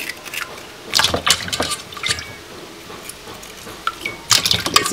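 Water splashing and dripping in a basin as food is washed and scraped by hand, with irregular clinks of a metal knife against a steel pot.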